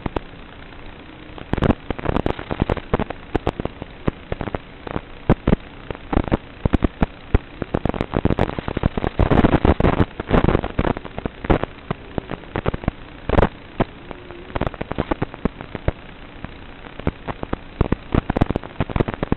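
Steady hiss of static from an analog FPV video receiver, broken by dense, irregular crackling pops that come thickest around the middle, as the signal breaks up.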